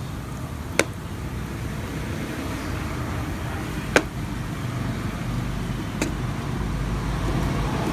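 A block of butter melting and sizzling in a hot wok of sautéed onion and garlic, with a metal spatula pushing it around and clinking sharply against the pan three times. A steady low rumble runs underneath.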